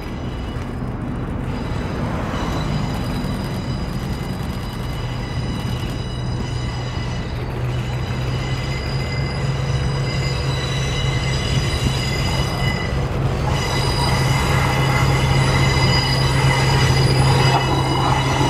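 DD200 diesel-electric locomotive approaching with the KiYa E193 East i-D inspection train in tow: a steady low engine drone that grows louder as it nears, with high steady whining tones and wheel noise on the curve over it.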